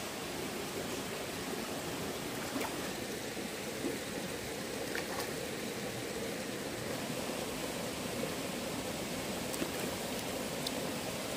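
Stream water flowing steadily, an even rushing with a few faint clicks over it.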